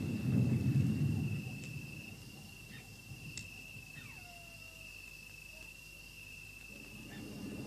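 Rolling thunder dying away over the first two seconds, leaving a steady, high, cricket-like chirr. A single falling whistle comes about four seconds in, and a low rumble builds again near the end.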